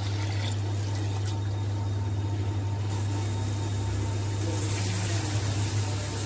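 Water poured from a steel bowl into a pan of chicken and gravy, splashing in the first second or so, over a steady low hum that runs throughout.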